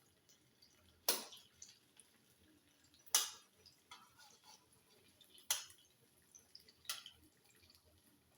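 Four sharp kitchen taps, a second or two apart, with faint small clicks between them.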